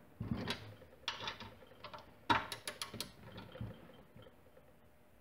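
Click-type torque wrench ratcheting in three short runs of clicks as a mounting-plate bolt is run down toward its 20-pound setting, before the wrench's release click.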